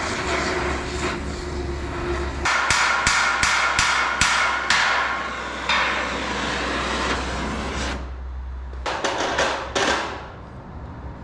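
Oxy-acetylene torch hissing steadily as it heats the end of a steel rivet. About two and a half seconds in comes a run of about eight sharp hammer blows on the rivet, a few a second, and near the end a few more sharp blows. The blows are setting a hot rivet.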